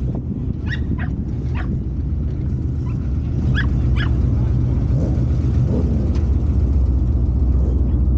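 A dog yips a few short times, about a second in and again around four seconds in, over a low, steady engine rumble.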